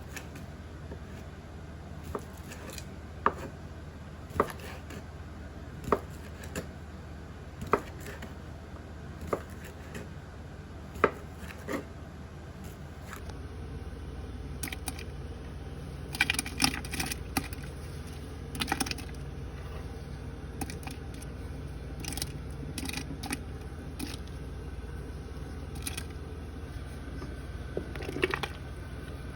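Kitchen work: single sharp knocks of utensils every second or so, then, over a steady low hum, short bursts of clattering clicks.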